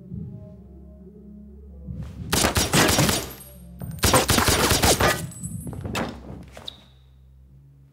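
Suppressed pistol fired rapidly in two long bursts, about two and four seconds in, with a lighter burst near six seconds, ending in a short high metallic ring. A low music drone plays underneath.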